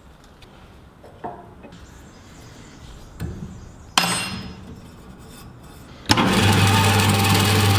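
A sharp metal clank about halfway through, then the WP210 metal-cutting band saw starts up suddenly near the end and runs steadily with a low hum.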